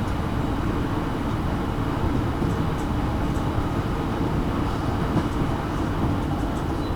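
JR Kyushu 815 series electric train running along the line, a steady rumble of wheels on rail with a few faint high clicks.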